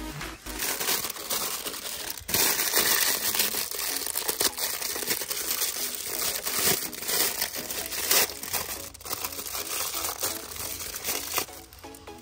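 An action figure's packaging being opened by hand: constant crinkling and crackling of plastic wrap, with sharp rustles and tearing, quietening near the end.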